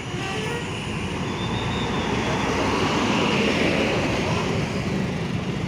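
A large bus driving past. The engine rumble and road noise swell to a peak a little past the middle and then ease off.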